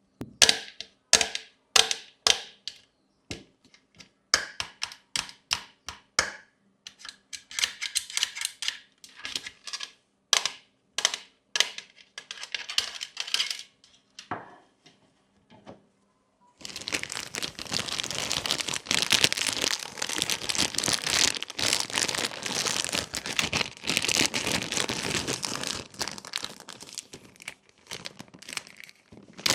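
Sharp clicks and taps of small plastic toys being handled, irregular at first, for about sixteen seconds. Then continuous crinkling, like plastic packaging being handled, through to the end.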